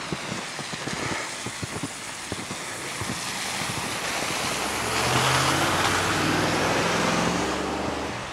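A motor vehicle going by on the snowy street: its engine hum and tyre hiss swell up about halfway through and cut off near the end. Before it, short irregular crunches of footsteps in deep snow.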